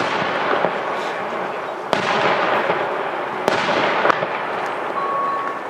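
Aerial firework shells bursting overhead, with sharp reports about two seconds in and again a second and a half later, and weaker ones between, over a continuous wash of noise from the display.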